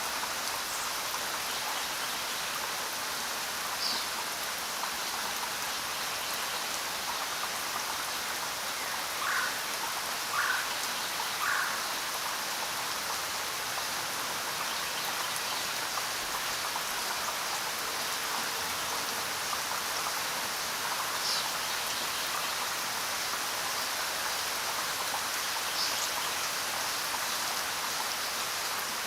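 Steady rain falling, an even hiss of many drops, with a few louder single drops or drips standing out now and then, three of them close together about a third of the way in.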